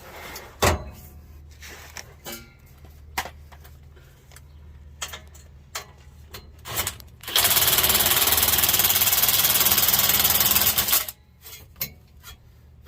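Clinks and knocks of an exhaust clamp and tools being handled, then a power drill runs for about four seconds, tightening the nut on the exhaust clamp.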